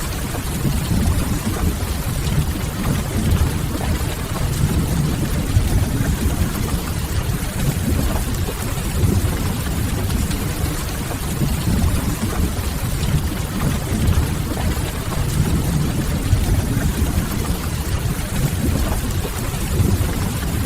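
Steady rain ambience with a deep, even low rumble and a soft hiss above it, mixed with the quiet crackle of a wood fire.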